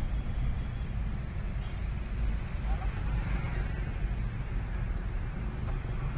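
Steady low rumble of a car driving, heard from inside the cabin, with faint voices about halfway through.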